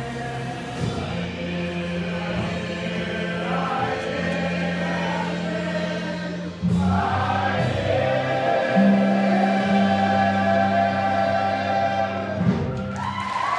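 A stage ensemble singing the closing bars of a rock-and-roll show tune together with instrumental accompaniment. It gets louder a little past halfway and ends on long held notes.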